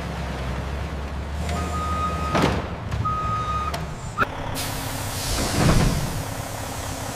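Forklift engine running with two long backup-alarm beeps, then a click and the hiss of a heavy truck's air brakes releasing.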